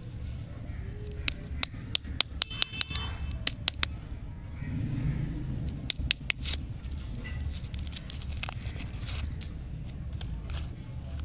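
A lollipop wrapper being crinkled and peeled open by fingers, with bursts of sharp crackles, one cluster in the first few seconds and another about six seconds in. A steady low rumble runs underneath.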